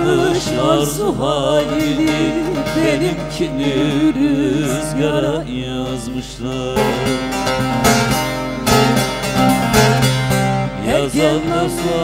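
Turkish folk song (türkü) performed live: a voice sings wavering, ornamented lines over a plucked bağlama, with a stretch of steadier held notes in the middle.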